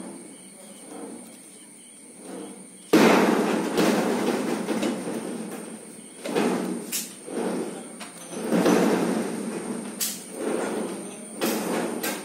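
Plastic grafting tape crinkling and rustling as it is stretched and wound around a mango graft union. It comes in loud noisy bursts: it starts suddenly about three seconds in, loudest at its start, then returns in several shorter bursts.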